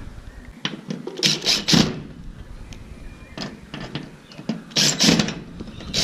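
Short clicks and scrapes of a metal screen-door lock catch being worked out of the aluminium door frame and a new one fitted in its place. There are a few brief bursts, the loudest near the end.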